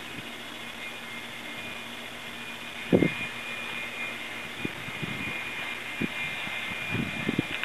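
A steady high-pitched drone with a thin whine running through it. A loud thump comes about three seconds in, and a few softer knocks follow near the end.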